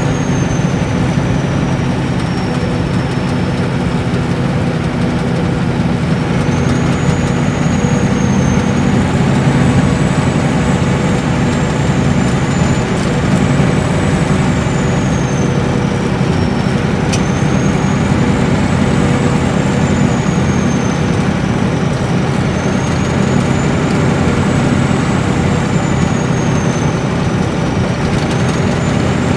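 Nissan Diesel Space Arrow RA coach's straight-six turbo diesel, heard from inside the cabin while cruising: a steady low engine drone with road noise, and a high turbocharger whistle that rises and falls about four times.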